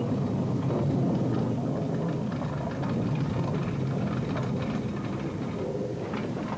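Steam tank locomotive drawing loaded wagons along the rails: a steady low rumble with frequent clanks and knocks throughout.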